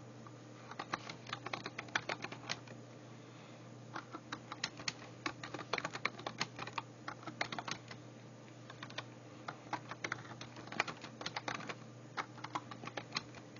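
Typing on a computer keyboard: quick runs of keystrokes in several bursts, broken by short pauses.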